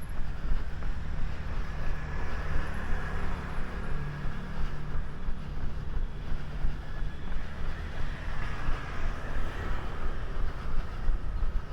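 Steady running footfalls with wind on the microphone, over a low mechanical rumble from a passing vehicle that swells and fades twice.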